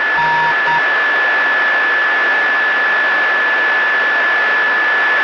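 Loud, steady radio static on the air-to-ground voice channel, an open channel hissing with no one talking, with a steady high whistle tone running through it.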